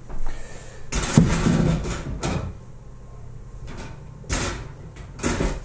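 Several clunks and knocks of heavy metal parts being handled and set down, the loudest and heaviest about a second in.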